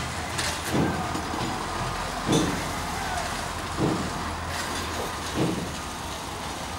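Construction-site machinery running steadily, a low engine hum with an even wash of noise, with a soft thud about every one and a half seconds.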